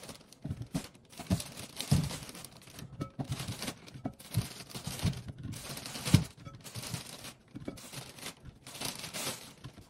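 A plastic produce bag crinkling and rustling as apples are taken out of it and set into a plastic bowl, with a few soft thuds of apples landing, the loudest about two seconds and six seconds in.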